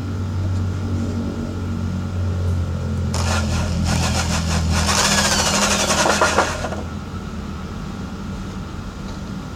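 Homemade drum sander, an electric drill spinning a sanding cylinder, running steadily; about three seconds in, wood is pressed against the spinning abrasive for about three and a half seconds, a loud rasping scrape with a falling whine, before the motor runs freely again.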